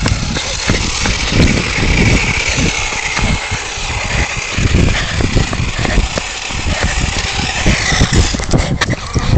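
Electric RC buggy motor whining steadily as an FTX Vantage drives along tarmac towing a second RC buggy, its pitch lifting slightly near the end. A heavy, uneven low rumble of wind buffeting the phone's microphone runs under it.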